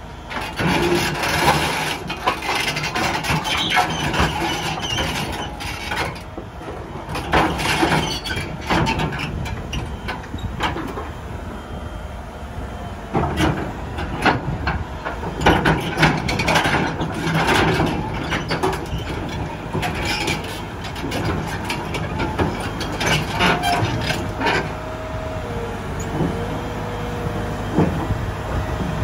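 Liebherr crawler excavator's diesel engine running under load as the machine tracks along a steel lowboy trailer deck and swings its boom, with irregular clanks and knocks from the steel tracks on the deck. A brief squealing tone comes in near the end.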